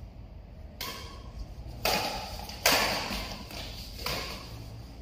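Badminton rackets striking a shuttlecock four times in a quick rally, each hit a sharp crack that rings on in the hall's echo.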